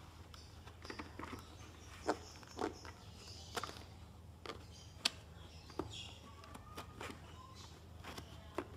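Faint handling noise of hands fitting a chin guard into a full-face motorcycle helmet: scattered small clicks and taps with a few brief rustling scrapes, over a low steady hum.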